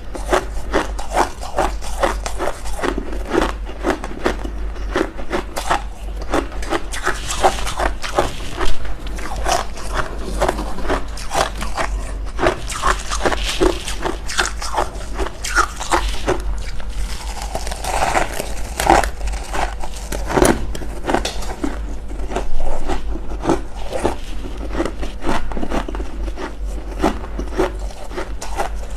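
Freezer frost being bitten and chewed: a dense run of crisp, crackly crunches with no let-up, over a steady low hum.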